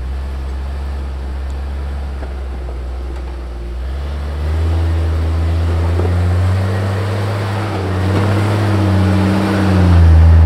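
Off-road vehicle engine running on a trail, growing louder and revving about four and a half seconds in, its pitch wavering up and down.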